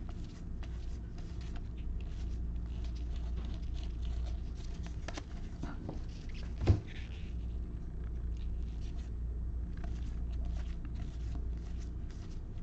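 Baseball trading cards being flipped through one by one in gloved hands: a stream of soft paper flicks and slides, with one sharp thump about halfway through, over a steady low hum.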